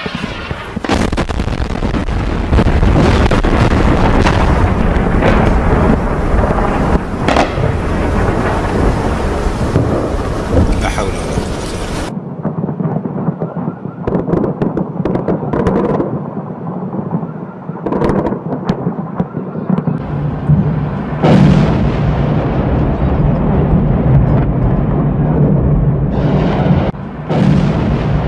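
Bombs and missiles exploding over a city: a series of sharp blasts over a continuous deep rumble, with the rumble turning duller and thinner about twelve seconds in, then loud again near the end.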